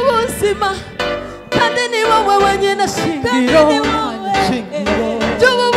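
Gospel music: singing with held, wavering notes over a band with a steady beat.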